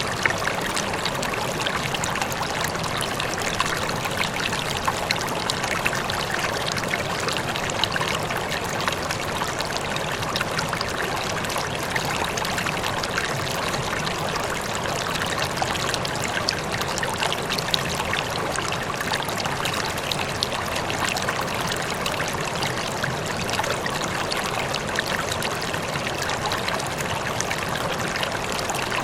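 Water flowing steadily in a stream, a continuous trickling and babbling rush without pause.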